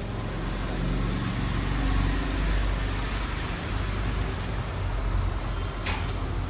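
A motor vehicle's engine running steadily under a wide haze of road noise.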